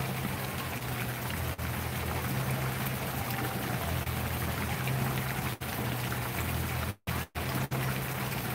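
Steady rushing of running water, with a low hum underneath. The sound cuts out for a split second three times near the end.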